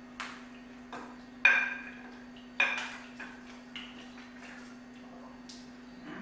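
Dishes and cutlery clinking and knocking on a table during a meal: about eight separate sharp clinks, some ringing briefly, the loudest about a second and a half in. A steady low hum runs underneath.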